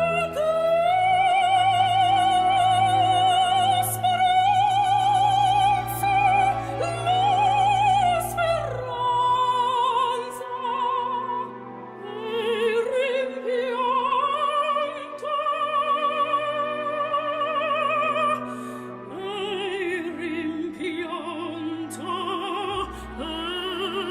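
Opera music: a high voice sings long held notes with strong vibrato over low, sustained orchestral accompaniment.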